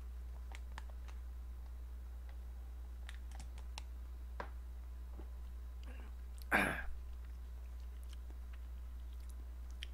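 Light crinkling and clicking of a foil-lined instant-ramen pouch being handled in a bowl, with one louder noise lasting about half a second about six and a half seconds in, over a steady low hum.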